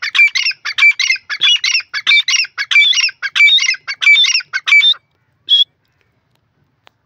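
Grey francolin calling: a fast, loud run of repeated high-pitched call phrases that stops about five seconds in, followed by one last short call.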